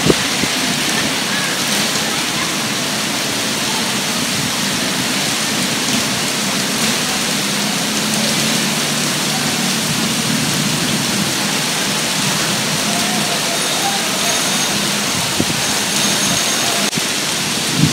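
Steady rain falling on a wet street.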